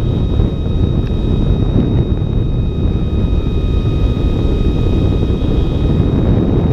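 Airflow buffeting the microphone of a camera mounted on an ultralight's wing in cruising flight, a loud, steady low rumble. Under it runs a faint, steady high whine from the plane's electric motor and propeller.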